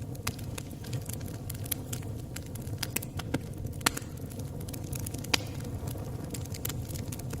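Campfire burning, with irregular sharp crackles and pops over a steady low rumble; the loudest pops come about four and five seconds in.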